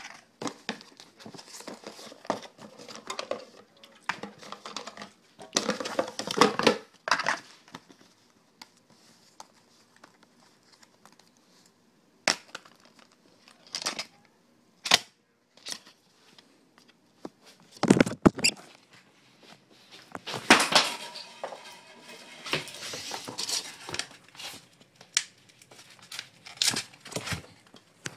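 Paper Burger King sandwich wrapper crinkling and tearing as it is handled and opened by hand, in irregular bursts with a few sharp clicks and quiet gaps between.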